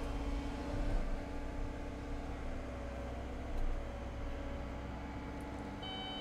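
Cat 315 hydraulic excavator's diesel engine and hydraulics running steadily under load as the bucket digs into soil, with a low hum and small swells in level; a higher steady whine joins near the end.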